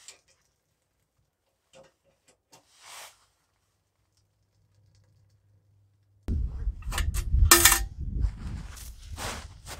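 A few small metal clicks and scrapes as the door and ash drawer of a Winnerwell Nomad camp wood stove are worked. About six seconds in, this gives way suddenly to loud rustling and thudding handling noise with a low rumble.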